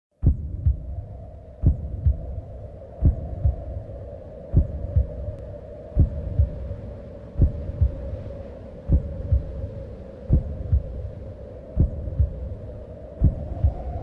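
Slow heartbeat, a double thump about every one and a half seconds, over a steady hum.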